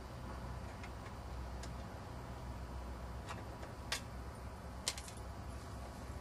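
Sparse, sharp metallic clicks from a hand tool working the bolts of a lawn mower engine's sheet-metal shroud, with two louder clinks about four and five seconds in, over a steady low hum.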